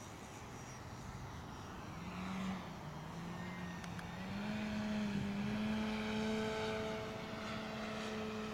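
Engine and propeller of a large radio-controlled aerobatic plane in flight, faint at first, then growing louder from about two seconds in, its pitch rising and then holding steady.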